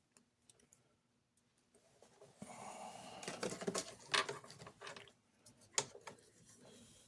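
Light handling sounds of test-wire clips being attached: soft rustling that starts about two and a half seconds in, with a few sharp clicks, the loudest about four seconds in.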